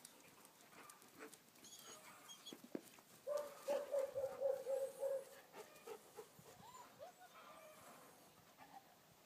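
Puppy giving a quick run of high yelps and whines for about two seconds, followed by a few short separate yips, while puppies play.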